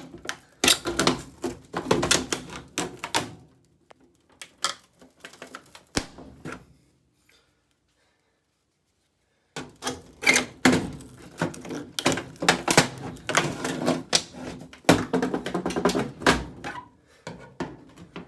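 Scissors prying and hacking at an old dryer's timer dial: rapid runs of clicks, knocks and scrapes. There is a break of about two seconds near the middle.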